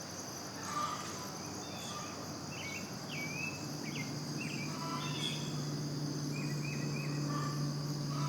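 A steady high insect chorus, like crickets trilling, with scattered short bird chirps over it. A low steady hum comes in about four seconds in.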